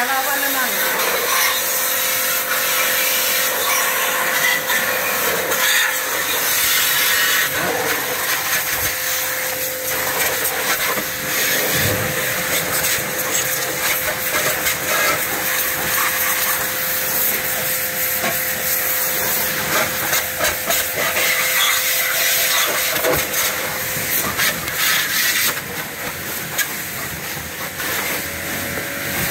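Electric pressure washer running: its high-pressure water jet hisses steadily as it blasts caked dirt and sand off a scooter, with a steady pump-motor hum under the spray. Near the end the spray quietens.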